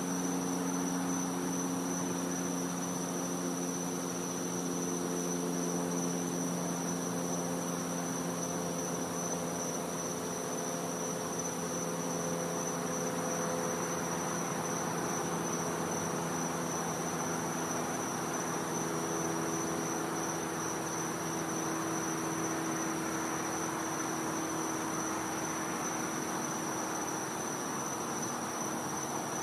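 Night insect chorus: a steady, unbroken high-pitched trill, over a low hum made of several steady tones that slowly shift in pitch.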